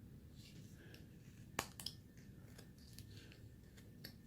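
Faint clicks and snicks of a carving knife cutting small chips from a wood carving, with one sharper cut about a second and a half in.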